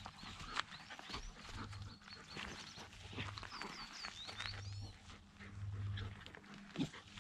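A vizsla puppy and a goldendoodle play-wrestling, with repeated low growls and grunts and scuffling in the grass. A few bird chirps come in the background about four seconds in.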